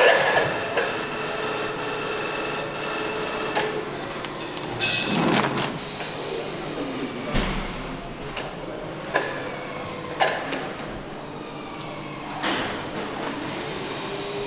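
Engine assembly-line workshop sounds: scattered metallic clanks and knocks over a steady machine hum, with two brief whooshes, one near the middle and one near the end.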